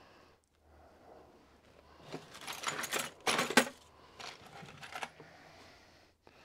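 Quarter-inch BSF nuts clicking and rattling against the studs and bronze body of a steam valve as they are fitted by hand. The clicks come in a cluster from about two seconds in, loudest in the middle, with a few fainter ones after.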